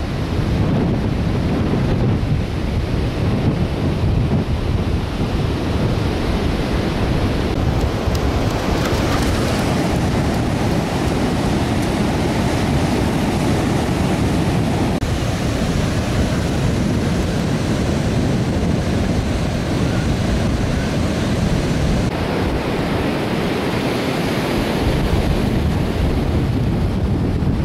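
Choppy ocean surf breaking and washing up the beach in a steady wash of noise, with wind buffeting the microphone in a low rumble.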